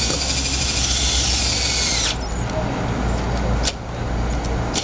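Cordless drill boring through plastic intake ducting, running with a high whine for about two seconds, its pitch dipping slightly just before it stops abruptly. A couple of sharp clicks follow.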